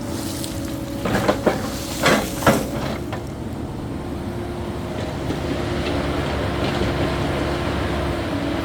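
Caterpillar 308E2 mini excavator running steadily under work, with a few sharp knocks about one to two and a half seconds in.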